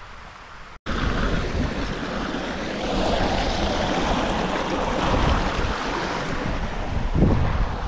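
Strong wind buffeting the microphone: a loud rushing noise with an unsteady low rumble, starting abruptly about a second in.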